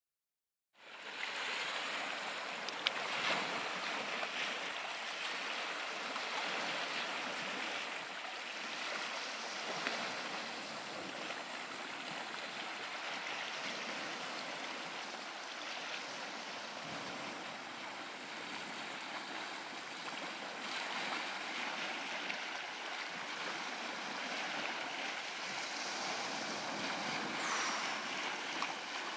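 Steady, even rushing noise of outdoor ambience, with a faint short rising whistle near the end.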